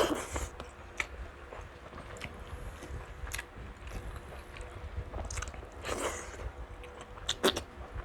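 A person chewing and biting close to the microphone, with scattered crunches from crispy fried pork belly (lechon kawali). The loudest bites come at the very start and about seven and a half seconds in.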